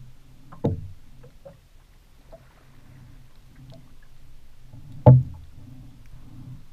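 Two loud thumps on a flats skiff's hull, about four and a half seconds apart, over a steady low rumble; the second thump is the louder.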